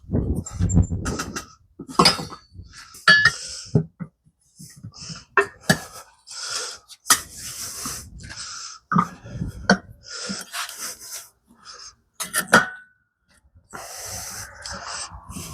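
Metal tools clanking and scraping against a small wheel rim while a tire is worked off it: a run of sharp knocks, some ringing briefly, between stretches of scraping and rubbing.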